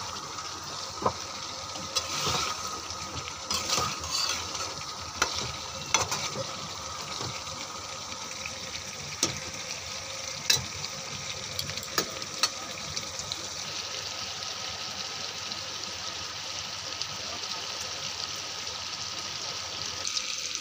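Chicken and potato curry sizzling in a frying pan, with a spatula scraping and knocking against the pan during roughly the first twelve seconds. After that only the steady sizzle remains.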